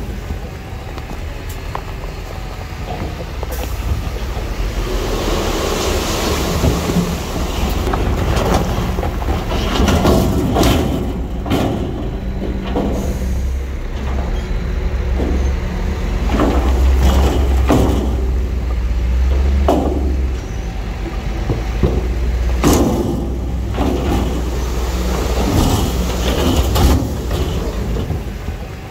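Heavy diesel earthmoving machinery running under load: a deep, steady engine drone with repeated clanks and knocks scattered through it, several close together in the second half.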